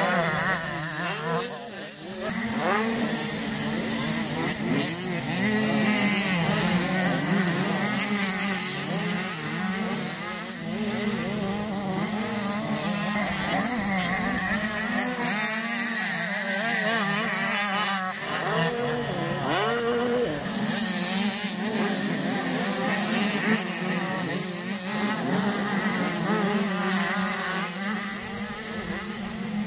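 Several 85cc two-stroke youth motocross bikes racing, their engines revving up and down as the riders work the throttle through jumps and turns, one engine note laid over another.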